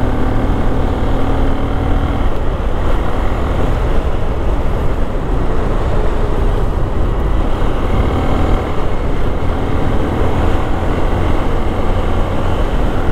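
Motorcycle engine running steadily at a cruise of around 60 km/h, with wind and road noise over it.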